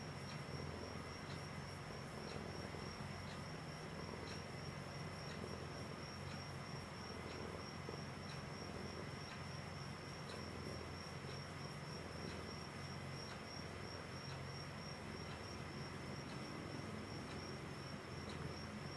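Domestic cat purring steadily while being stroked, a low continuous rumble. Over it runs a steady high-pitched whine with faint, evenly spaced ticks.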